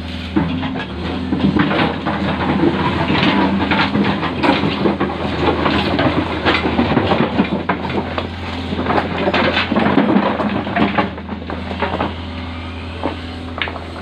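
Hitachi hydraulic excavator's diesel engine running steadily while its steel bucket digs into a pile of river stones, the rocks clattering and knocking against each other and the bucket. The clatter thins out near the end while the engine keeps running.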